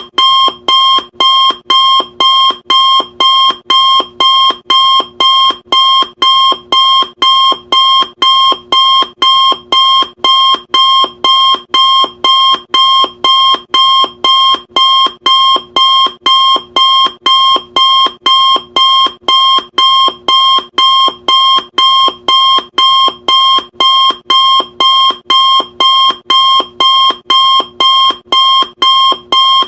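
Electronic countdown timer alarm beeping in an even repeating pattern, about two short, sharp, high beeps a second.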